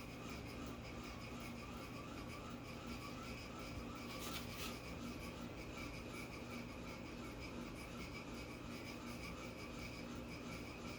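Faint steady hum of room tone with a light wavering tone, and a brief soft rustle about four seconds in.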